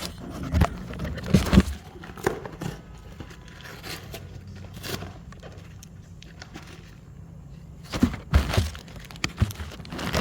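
A cardboard parts box being opened and handled: rustling packaging and short knocks, in bursts about a second in and again near the end, with quieter handling between.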